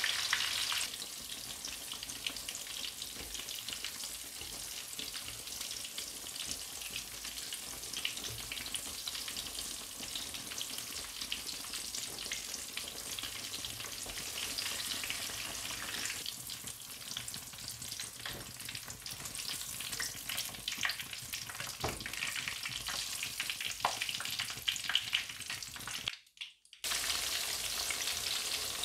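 Tofu and then tempe deep-frying in hot oil in a pan: a steady sizzle with fine crackling pops. It drops out for a moment near the end.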